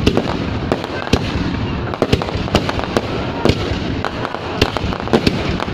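Fireworks going off without a break: a dense, continuous rumble of bursts, with sharp cracks and pops at irregular intervals, two or three a second.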